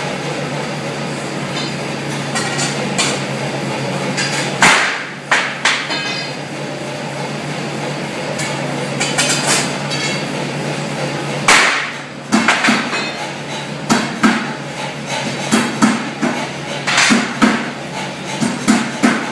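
Copper hammer striking a forged steel finial bar against a steel straightening block, to correct its straightness. There are sharp ringing metal blows about five seconds in and again near the middle, then a run of lighter metal knocks about twice a second, over a steady low workshop hum.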